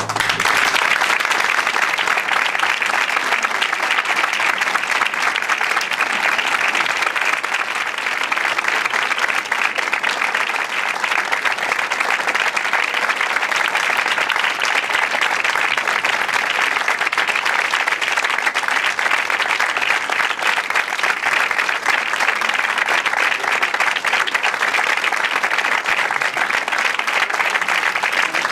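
Audience applause breaking out just as the choir's last sung note ends, then keeping up as dense, even clapping at a steady level.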